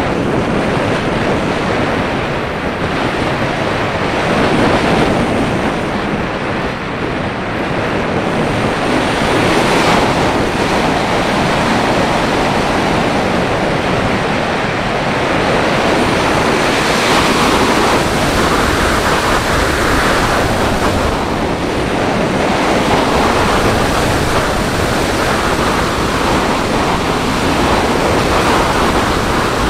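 Airflow rushing over the microphone of a HawKeye Firefly Q6 action camera on the nose of an unpowered slope-soaring glider in flight. It is a loud, steady wind noise with no motor, swelling and easing several times.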